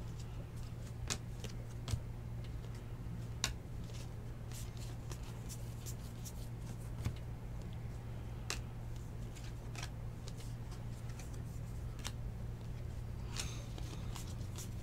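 2019 Bowman baseball cards, including stiff Chrome cards, being flipped through and slid past one another by hand, giving scattered sharp flicks and clicks at irregular moments over a steady low hum.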